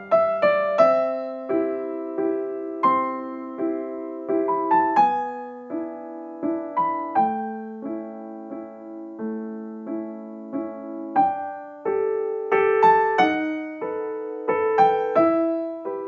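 Background piano music: a slow, gentle melody of single struck notes fading away over lower held notes.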